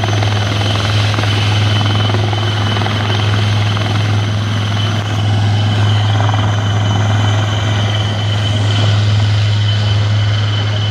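Helicopter hovering low, its rotor and turbine running steadily with a constant high whine.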